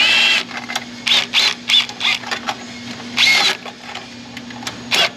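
Stainless worm-drive hose clamp being fitted around a loose exhaust heat shield to stop it rattling: its metal band scrapes and clicks against the shield in about eight short rasps, a few with a brief squeak.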